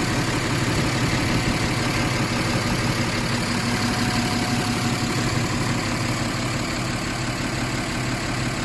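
Lamborghini 1506 tractor's diesel engine idling steadily.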